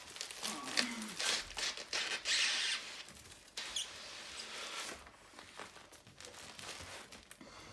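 Plastic packaging and bubble wrap crinkling and rustling as a taped plastic-wrapped parcel is handled and pulled open. The sound comes in short bouts with sharp crackles, loudest in the first three seconds, then fainter.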